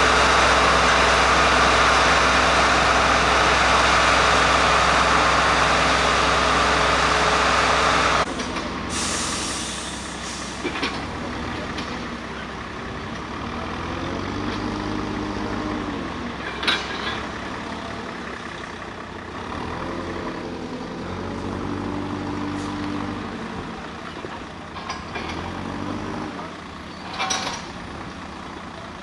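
Plasser & Theurer 08-16 compact tamping machine running loudly and steadily, cutting off suddenly about eight seconds in. Then a Mercedes-Benz Actros road-rail truck's diesel engine runs more quietly, rising and falling in pitch several times, with a brief hiss right after the change and a few sharp clicks.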